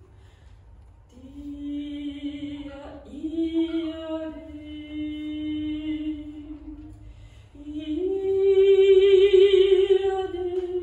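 Unaccompanied solo soprano singing slow, long held notes with vibrato in a contemporary art song. The voice enters about a second in, pauses briefly past the middle, then returns with a louder, higher held note.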